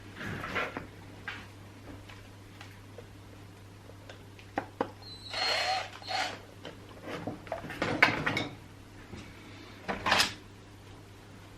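Chainsaw parts being handled and fitted by hand: irregular clicks, rustles and knocks of plastic and metal. There is a longer rustling scrape about five seconds in, and sharper knocks near eight and ten seconds.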